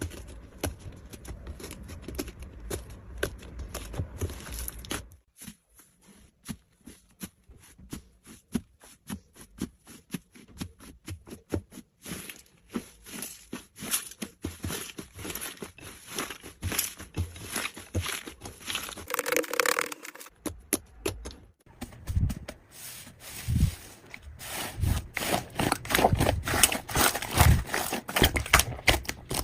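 Slime being squeezed and poked by hand, giving an irregular run of sticky clicks and small crackling pops. The clicks grow louder and denser in the last several seconds.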